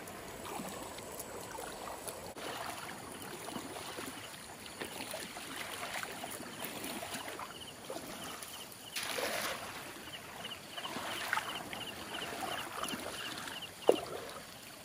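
Sloshing and splashing of someone wading through shallow water, with an insect calling in regular short pulses from about two seconds in. Near the end there is a single sharp, loud sound as the cast net is thrown.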